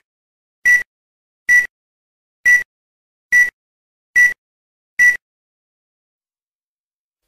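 A series of short, high electronic beeps, all at one steady pitch and evenly spaced a little under a second apart, about seven in all, stopping about five seconds in.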